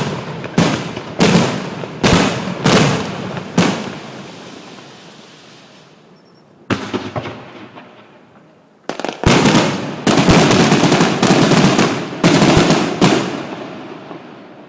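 Aerial fireworks shells bursting in a quick run of sharp bangs, each trailing off in a long rumbling echo. After a lull broken by one lone bang, a dense, rapid barrage of bursts follows and then fades away.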